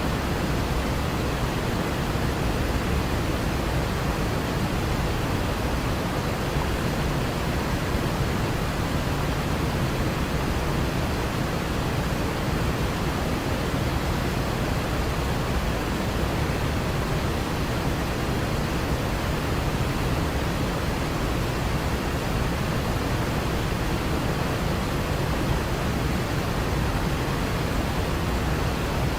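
Waterfall: falling water making a steady, unbroken rushing noise with a deep low rumble.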